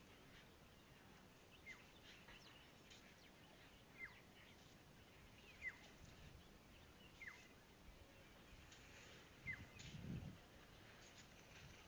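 Faint bird calls: a single short, high note sweeping downward, repeated about every two seconds, five times. A brief low rumble comes about ten seconds in.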